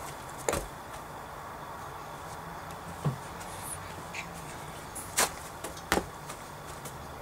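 A few sharp thuds and swishes from a person doing a slow jumping kick on grass, the two loudest about five and six seconds in, over a steady low background.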